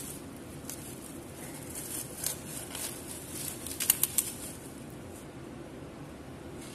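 Thin plastic produce bag crinkling and rustling as it is pulled off a head of cauliflower, with a cluster of sharper crackles about four seconds in, over a steady low background hum.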